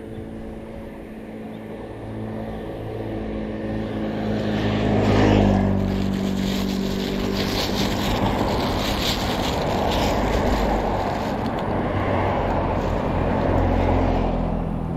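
A motor vehicle engine passing close. Its hum builds to a peak about five seconds in, then turns into a steady rushing noise that fades near the end.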